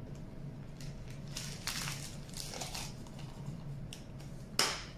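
Clear plastic zip-top bag crinkling and rustling as rice flour is tipped into it from a plastic measuring cup, with a short sharp knock near the end.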